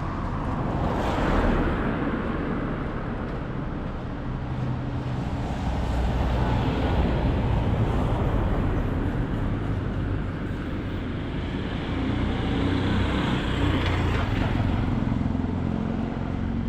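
Road traffic on a street: a vehicle passes about a second in, followed by a longer stretch of tyre and engine noise from passing cars with a low rumble.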